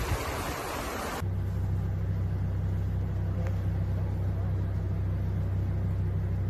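Blustery wind noise on the microphone. About a second in it cuts to a steady low hum inside a car's cabin, the engine and road rumble of the car.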